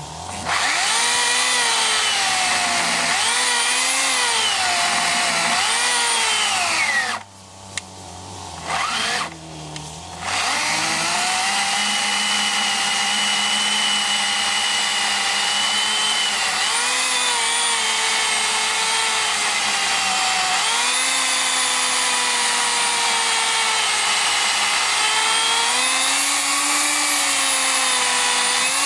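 Makita UC4020A electric chainsaw cutting through a thick log, its motor whine sagging in pitch as the chain bites and recovering as the load eases. The saw stops briefly twice about a quarter of the way through, with a short burst in between, then runs on in one long cut.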